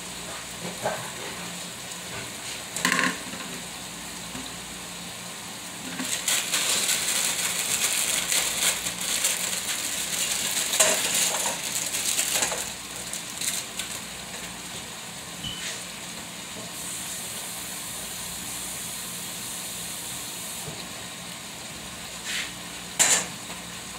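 Sliced beef for pepper steak sizzling steadily in a frying pan. It gets louder and noisier for several seconds in the middle, with a couple of sharp knocks, the loudest near the end.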